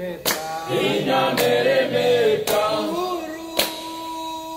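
A group of voices sings a chant-like song in chorus, with a sharp beat about once a second. Near the end one long note is held.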